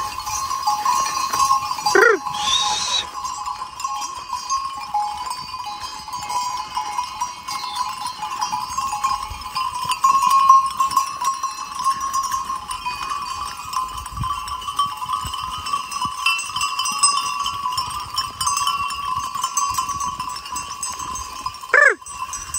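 A flock of sheep on the move, many sheep bells clanking together continuously. A sheep bleats briefly about two seconds in and again near the end.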